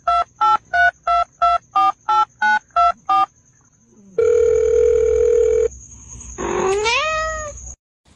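Ten quick electronic beeps at two or three pitches, like phone keypad dialing tones. They are followed by a steady beep about a second and a half long, then a tone that rises and eases slightly down near the end.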